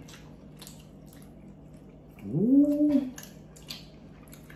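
Mouth sounds of eating crispy birria tacos: chewing and lip-smacking clicks. A little over two seconds in comes one hummed 'mmm' of enjoyment that rises in pitch and then holds for under a second; it is the loudest sound.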